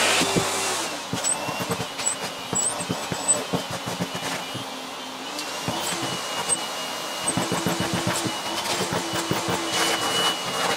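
Canister vacuum cleaner running, its hose nozzle being worked over an old cloth dust bag. The motor's hum shifts in pitch as the nozzle moves over the fabric, a high whine comes in about four seconds in, and there are many short rustles and clicks as the cloth is pulled against the nozzle.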